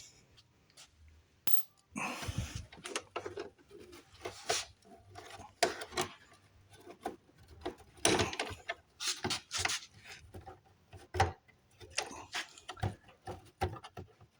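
Hand tools working on a car's battery cover: irregular clicks, knocks and short scrapes of metal on plastic and metal as screws and the panel are worked loose.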